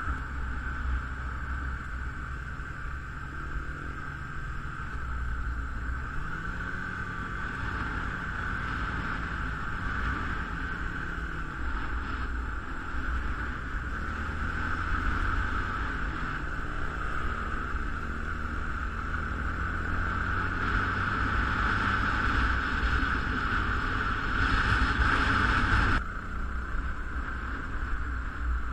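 A motor running with wind noise on the microphone, its pitch rising and falling; the sound changes abruptly near the end.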